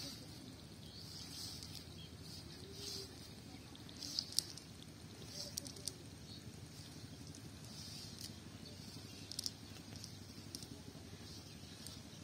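Faint rustling and scattered small crackles of a cast net's mesh being handled on grass as small fish are picked out of it, a few sharper clicks among them, over a steady low background noise.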